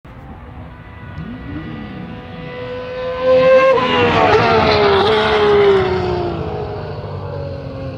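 1994 Ferrari Formula 1 car's V12 engine coming up and passing close by at speed. It grows louder and climbs in pitch, is loudest at around four to six seconds, then drops in pitch and fades as the car goes past and away.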